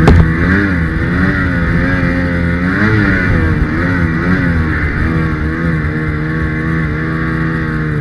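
Ski-Doo Summit 850's two-stroke twin engine revving up and down repeatedly as the sled works through deep snow. A sharp knock right at the start.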